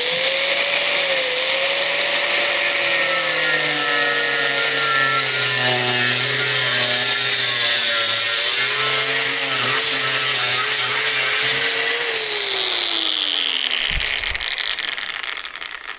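Angle grinder cutting through a plastic panel with a metal plate embedded in it: the motor runs at a steady high speed, its note wavering as it bites. About twelve seconds in it is switched off and winds down with a falling pitch.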